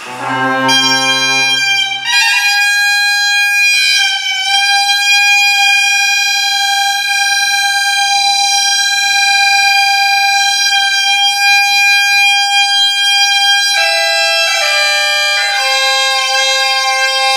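Iberian bagpipe (gaita de fole) starting up. A low note sounds briefly as it comes in, then the chanter holds one high note for about ten seconds. In the last few seconds it moves into a tune.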